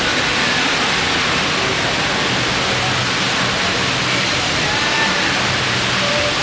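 Steady loud rushing noise, unbroken and even throughout.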